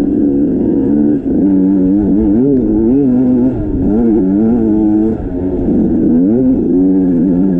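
Motorcycle engine being ridden, its pitch rising and falling repeatedly as the throttle is worked on and off.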